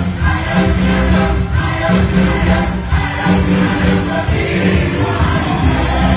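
Gospel choir singing live over a band, with a strong bass line.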